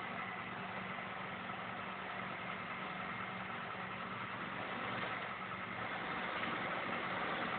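Doughnut production-line conveyor machinery running: a steady mechanical hum with a few faint held tones, growing a little louder near the end.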